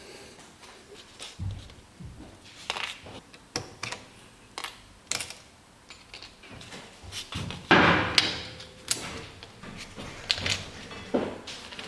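Irregular clicks and knocks of small parts and tools being handled on a work surface, with a louder clatter about eight seconds in and another sharp knock a second later.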